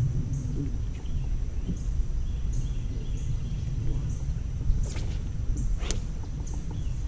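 Outdoor ambience on the water: a steady low rumble of wind on the microphone under short, high chirps that repeat every half second or so, with a thin steady high tone behind them. Two sharp clicks come about five and six seconds in.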